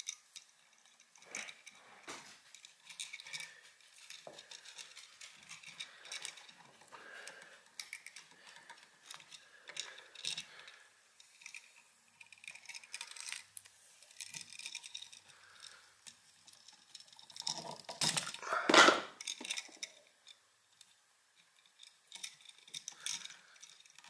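Vinyl electrical tape being pulled off the roll and wrapped around the screw terminals of an electrical outlet, with small clicks and rustles of handling and one louder burst about three-quarters of the way through.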